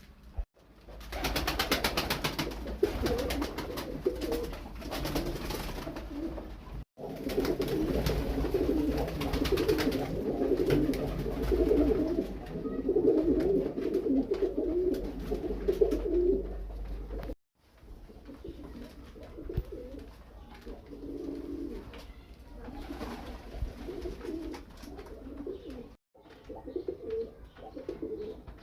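Several domestic pigeons cooing at once, overlapping throughout. The sound drops out briefly three times.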